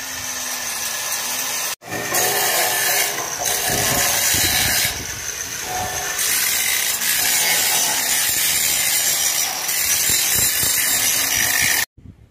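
Electric arc welding on the mild-steel staircase: a steady, loud crackling hiss from the welding arc. It breaks off briefly about two seconds in and stops abruptly near the end.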